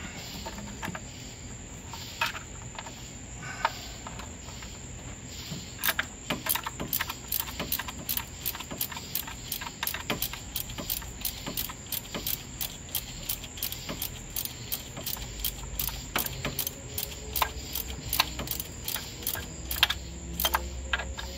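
Socket ratchet clicking as it tightens spark plugs into the engine's cylinder head: a few separate clicks at first, then quick, steady runs of clicks from about six seconds in.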